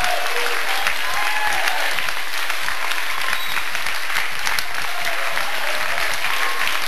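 Large audience of several hundred applauding steadily, with a few voices calling out over the clapping.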